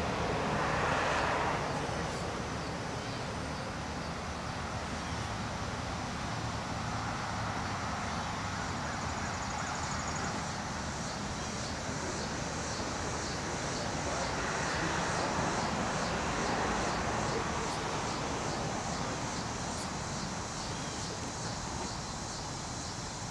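Distant, steady rumble of a departing Rotem Silverliner V electric commuter train, fading as it pulls away, with a slow swell of noise partway through. A faint, high, rhythmic chirping joins from about ten seconds in.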